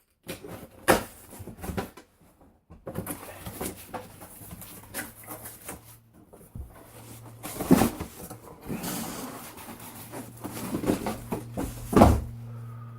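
Packaging being handled and opened: irregular rustling and crinkling with scattered clicks and a few sharp knocks, over a low steady hum.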